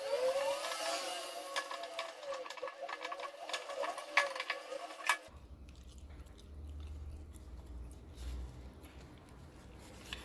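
Hand-work noise on a homemade slingshot rifle's small metal fittings and rubber tubing: sharp clicks and rubbing with faint squeaks. About five seconds in it cuts to a quieter low steady hum.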